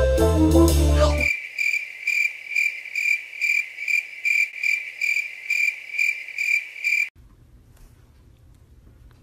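Brass-led background music cuts off about a second in and gives way to cricket chirping, a comic 'crickets' sound effect: evenly spaced chirps, about two a second. The chirps stop abruptly near the end, leaving faint room tone.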